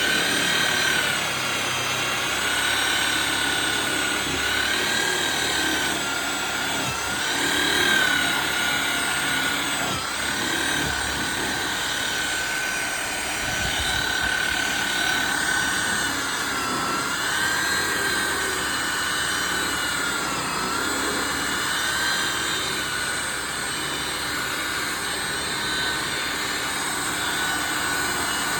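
Electric polisher buffing a metal car bumper with polish: the motor whines steadily, its pitch dipping and recovering every few seconds as the pad is pressed into the metal.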